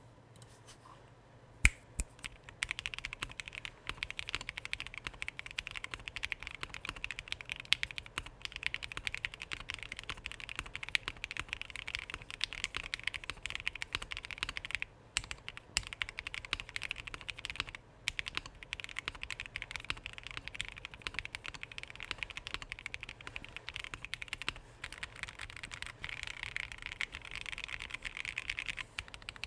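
Typing on an sz60 keyboard: a dense, steady run of rapid keystroke clicks with a few short pauses, starting about two and a half seconds in after a single sharp click, the loudest sound here.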